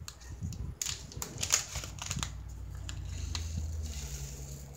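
Small clear plastic bag of rhinestones being fiddled with and pulled open by hand: irregular crinkling and sharp little clicks of the plastic, with a low rubbing rumble from the handling.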